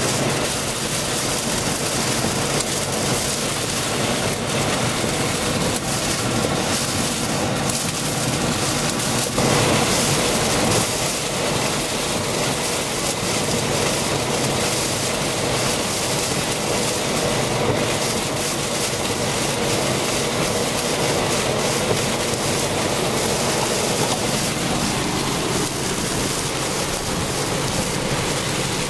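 Heavy rain falling steadily, mixed with the rushing of a river in flood.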